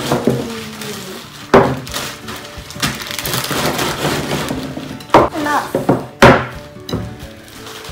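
Wire whisk knocking and clattering against a glass mixing bowl as a child whisks chocolate pudding: a handful of sharp knocks at uneven intervals, the loudest about five and six seconds in.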